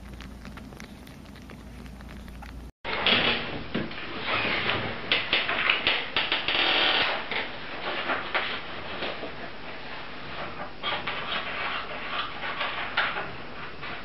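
Kittens faintly suckling at milk bottles. After a sudden cut, a cat licks a sleeping dog's head close up: an irregular, crackly run of wet licking and rubbing sounds, louder than the suckling.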